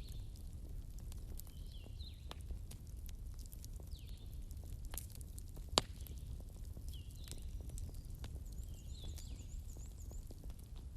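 Wood bonfire burning and crackling, with irregular sharp pops over a low steady rumble of the flames; one loud pop comes about six seconds in. Birds chirp faintly in the background throughout, with a quick run of high notes near the end.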